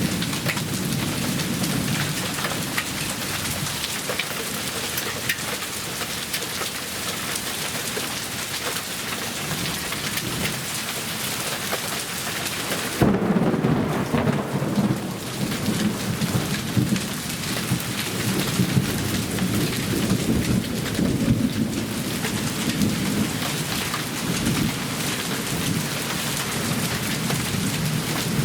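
Hailstorm: hail and heavy rain pelting down in a dense, continuous clatter of impacts. About halfway through the sound turns duller and lower, with more low rumble and less sharp high clatter.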